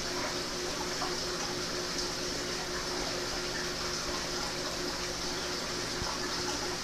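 Reef aquarium's water circulation running: a steady splashing, trickling water noise over a steady low hum.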